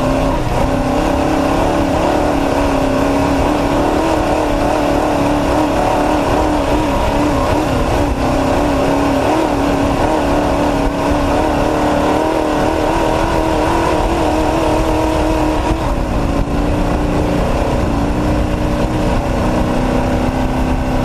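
Off-road race truck's engine running hard at fairly steady revs, its pitch wavering slightly; about three-quarters of the way through the pitch drops a little and then holds.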